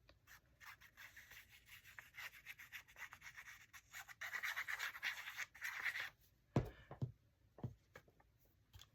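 Cardstock being rubbed and scraped against paper on a craft table in short repeated strokes, then a few soft knocks near the end.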